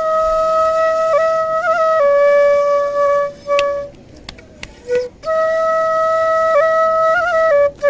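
Bansuri (bamboo flute) played solo: long held notes with small trilled ornaments, stepping down a little after about two seconds. It stops for about a second and a half in the middle, where a few sharp clicks are heard, then the flute resumes with another long held note and trills.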